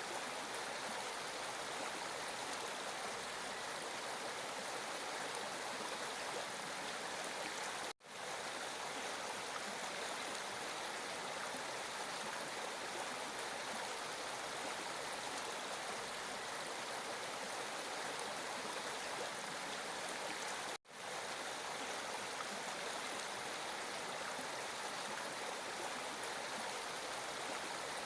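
Water flowing steadily with an even rushing sound. The sound cuts out for an instant twice, about 8 and 21 seconds in.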